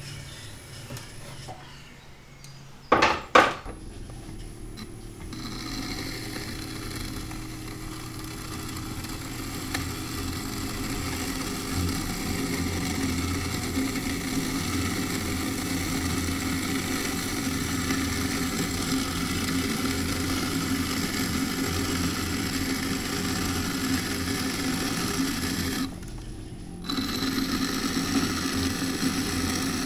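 Electric potter's wheel running steadily while a small metal loop tool scrapes the turning clay of a moon jar, trimming its surface. Two sharp knocks come about three seconds in, and the scraping breaks off briefly near the end.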